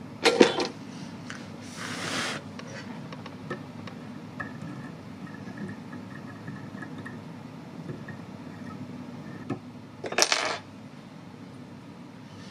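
Small hard objects clinking and rattling, likely fly-tying tools being handled at the vise. There is a cluster of clatter right at the start and another about ten seconds in, a short hiss about two seconds in, a few lone ticks, and a low steady hum underneath.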